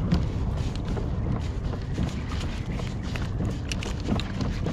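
Low rumble of wind and water around a kayak on open water, with scattered small clicks and ticks throughout.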